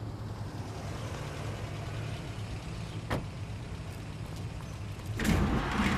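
Steady low mechanical rumble of an elevator, with a sharp click about three seconds in. Near the end a louder rush of noise comes as the elevator doors slide open.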